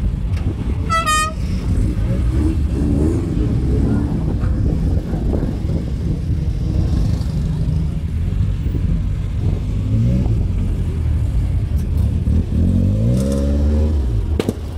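Classic car engines running in a group of cars. A short car-horn toot comes about a second in, and an engine revs up with rising pitch twice in the second half.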